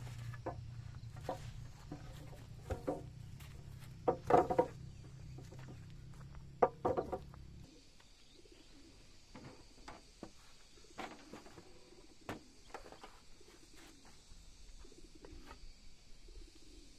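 Chickens clucking, with louder calls about four and about seven seconds in, over a steady low hum that cuts off suddenly near the middle; afterwards softer dove-like cooing and a few light knocks.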